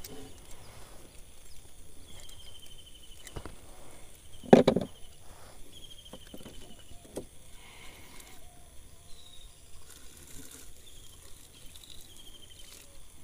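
Handling noises in a wooden boat while a caught fish is unhooked: light clicks and knocks, and one loud thump against the boat about four and a half seconds in. A short high trilling call repeats every second or two in the background.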